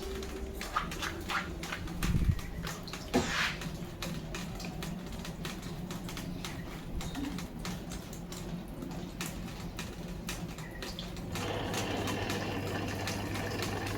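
Samsung washing machine: a few clicks and knocks, then about eleven seconds in a steady rush of water with a low hum starts as the drum fills.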